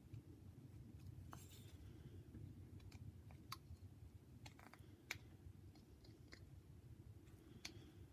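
Faint, scattered clicks and snips of a small whittling knife making fine cuts in a wooden carving, over a low steady hum.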